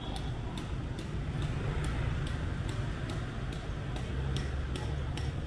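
Steady city street traffic rumble, with a sharp tick repeating evenly about three times a second.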